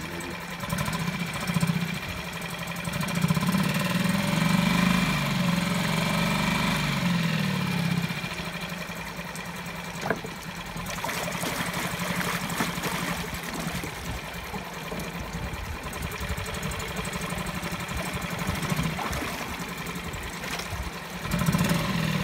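Tohatsu 6 hp single-cylinder four-stroke outboard running in a test barrel of water. It picks up speed for a few seconds, then drops back after a single sharp click about ten seconds in, and rises again near the end.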